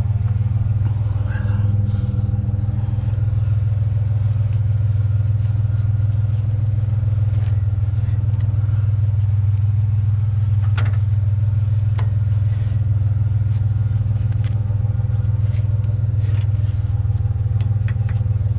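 Pickup truck engine idling steadily, with a few light clicks and knocks of metal scrap being handled and tied down in the truck bed.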